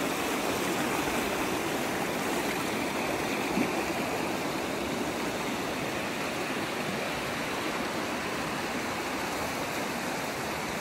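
A fast-flowing creek rushing through white-water rapids, a steady, even rush of water.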